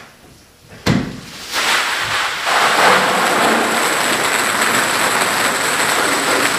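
A single sharp knock, then a dense, steady patter of hundreds of ping pong balls pouring from a bag into a garbage can and spilling, bouncing on the bench top and floor.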